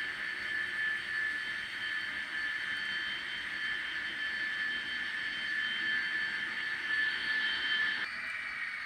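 N-scale model train locomotive running along the track, giving a steady high-pitched motor whine that changes pitch about eight seconds in.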